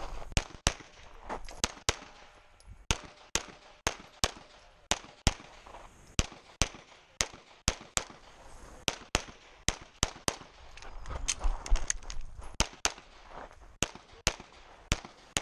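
Competition pistol fired in quick pairs, the two shots of each pair about a third of a second apart, with short pauses between the pairs while the shooter moves between target positions in a timed practical-shooting stage.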